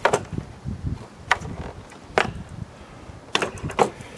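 Handling knocks from the plastic housing of a Mosquito Magnet Patriot Plus being tilted and shifted on a wooden workbench: about five sharp knocks, spaced irregularly, over a low rumble.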